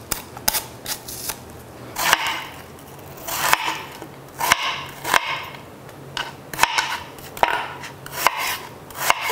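Knife slicing through peeled apples on a cutting board: each cut is a short crisp swish through the fruit ending in a sharp knock of the blade on the board, repeated at an uneven pace of about one a second.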